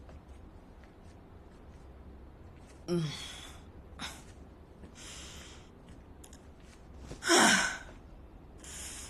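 A woman's startled gasps and wordless cries: a short cry falling in pitch about three seconds in, breathy sighs after it, and a louder falling cry about seven seconds in, over a low steady hum.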